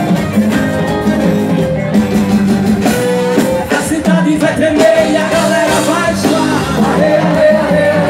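Live band playing upbeat music on electric bass, electric guitar and drum kit, with a singer's voice over it from about three seconds in.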